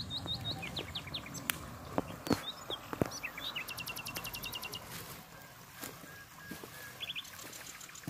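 Small songbirds chirping: a string of short rising chirps in the first second, then a fast rattling trill of repeated high notes around the middle and a few more short notes near the end. A faint steady trickle of the spring's runoff stream lies underneath, with a few sharp clicks.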